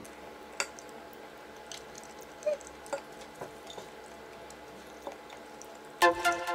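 A few light clicks and taps of a metal utensil against a ceramic plate as stir-fried food is scooped, over a faint steady room hum. Near the end, music with a steady electronic beat comes in loudly.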